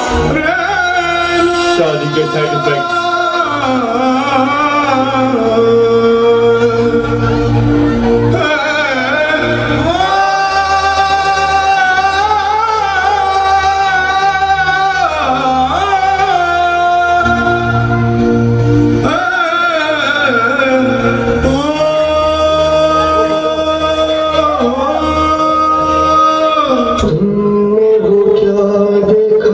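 Song playback: a sung lead voice holding long, gliding notes over instrumental backing and a steady bass line, with the song changing to a new section near the end.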